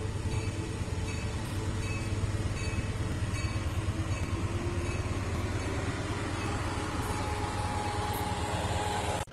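Amtrak diesel locomotive approaching with a steady low rumble, while a level-crossing bell rings in an even rhythm of under two strokes a second. A sustained tone comes in over the last few seconds.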